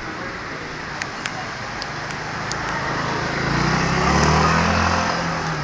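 A scooter's small engine passes close by, swelling to a peak and fading again over about two seconds, over steady background noise. A few sharp clicks come before it.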